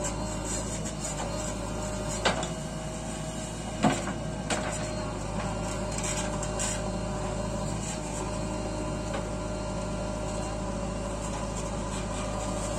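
JCB 3DX Eco backhoe loader's ecoMAX diesel engine running under load with a steady hum as it works the backhoe arm, digging soil and loading it into a truck. Sharp clunks come about two seconds in and twice around four seconds in.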